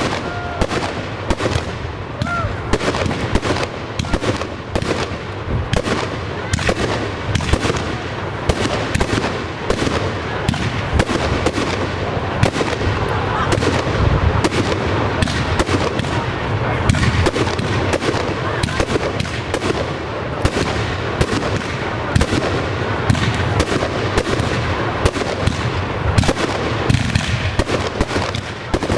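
Professional fireworks display going off in a dense, continuous barrage: many rapid bangs and crackles overlapping, with no pause.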